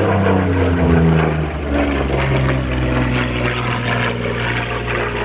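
Propeller aircraft engine running at full power as the plane flies past. Its pitch drops over the first couple of seconds as it goes by, then it holds a steady drone.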